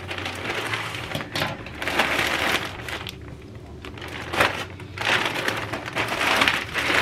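Plastic mailer envelope crinkling and rustling as it is cut open with scissors and the package inside is pulled out. The crinkling eases off about three seconds in and picks up again near the end.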